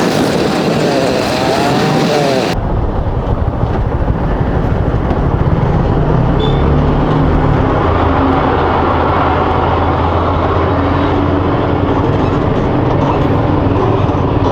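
A motorcycle engine running under way, with low wind and road rumble. It is preceded for the first two and a half seconds by a wavering, gliding pitched sound that cuts off abruptly.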